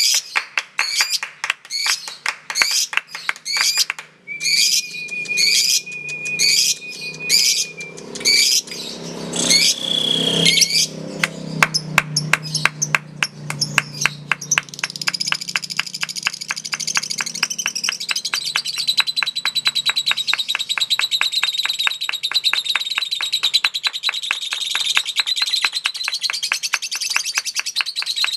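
Lovebird chirping in separate repeated calls for about the first ten seconds, then breaking into a long, fast, unbroken chatter (the 'ngekek' that competition birds are judged on) that runs on to the end.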